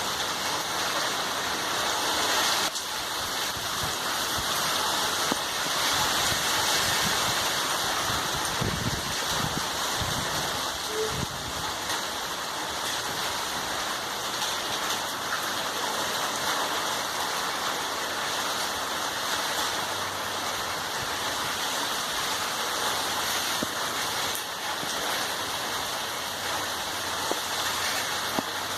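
Heavy rain falling steadily, a dense even hiss of rain.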